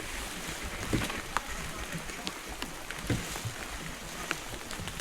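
Steady rain falling, with scattered drops tapping and a few louder knocks about a second in and again near three seconds.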